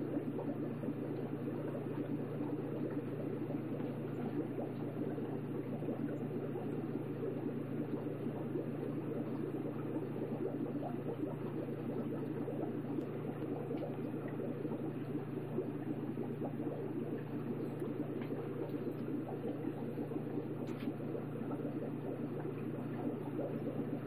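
Aquarium water and filter running steadily: a continuous low bubbling, churning water sound over a steady low hum from the tank's pump.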